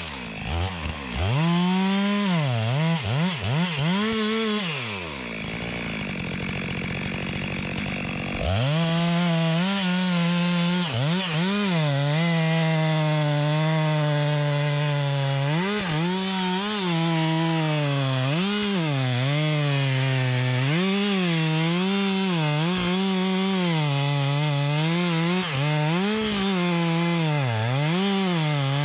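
Two-stroke chainsaw revved in a few quick blips, then dropping back to a low idle. About eight seconds in it goes to full throttle and cuts into oak, its pitch sagging and recovering again and again as the chain bites under load.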